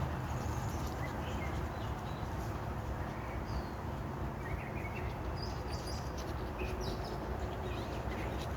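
Scattered short bird chirps over a steady low outdoor rumble.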